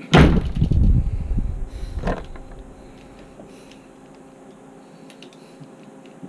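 A loud thump with rumbling and clattering for about a second and a half, then a second, sharper knock about two seconds in.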